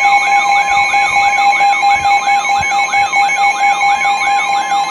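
Emergency Alert System attention signal: two steady tones sounding together, overlaid by a warbling tone that sweeps up and down about three times a second, announcing the severe thunderstorm warning that follows.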